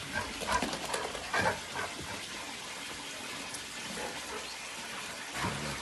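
Two dogs play-fighting, with short scuffling bursts and knocks in the first couple of seconds over a steady hiss. A pitched dog-like call begins near the end.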